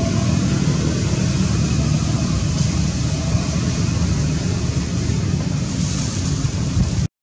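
Steady wind rumble buffeting the microphone, a loud low roar with a hiss over it, cutting off suddenly at the very end.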